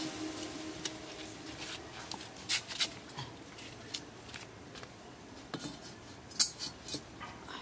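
Metal cooking pans being set down on a clay wood-burning stove: a scattering of sharp clinks and knocks, the loudest cluster near the end.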